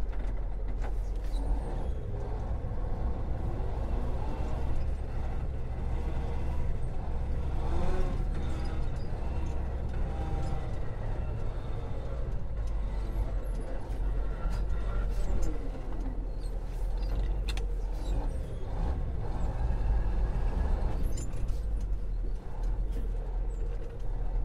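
Truck engine running, heard from inside the cab as a steady low rumble, with scattered small clicks and rattles from the cab interior.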